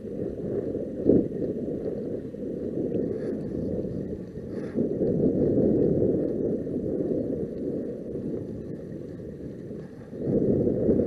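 Wind buffeting the microphone: a low rushing noise that grows and eases in gusts, with a single sharp knock about a second in.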